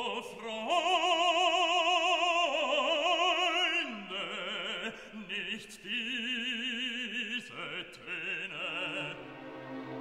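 Background music: a classical operatic voice singing long held notes with a wide vibrato, moving between a few pitches.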